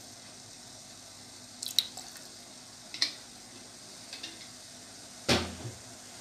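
A few scattered drips and small pops from hot sauce liquid in an aluminium pot on a gas stove, over a faint steady hiss, with one louder knock about five seconds in.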